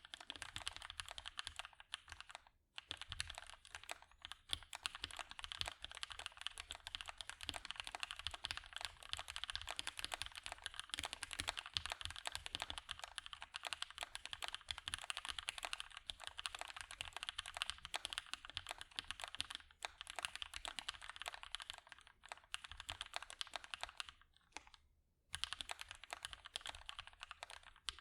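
Continuous fast typing on a custom mechanical keyboard with lubed and filmed Gateron Hippo switches on a POM plate under GMK keycaps: a dense stream of keystroke clacks. It pauses briefly twice, a couple of seconds in and near the end.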